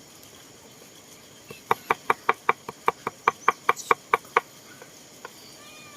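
A knife chopping rapidly on a cutting board: about sixteen quick, even strikes, roughly six a second, starting about a second and a half in and stopping after about three seconds.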